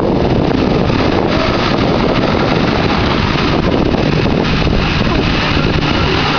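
Pickup truck engines running hard under load, with a stuck truck's tyres spinning in deep mud and slinging mud and water.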